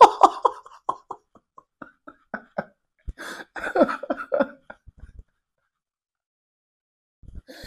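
A man laughing: a string of short, breathy chuckles about three to four a second, then a fuller voiced laugh around three to four and a half seconds in, stopping about five seconds in.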